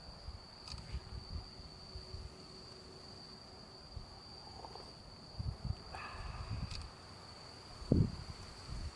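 Night insects trilling in one unbroken high note, with gusts of wind buffeting the microphone now and then, the strongest near the end.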